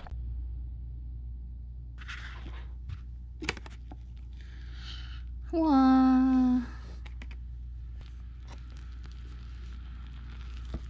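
Rustling and a short tearing noise from a paper-lidded instant cup noodle being opened. A woman's long drawn-out "wow" comes about six seconds in and is the loudest sound. Faint clicks of chopsticks stirring the noodles follow, over a steady low hum.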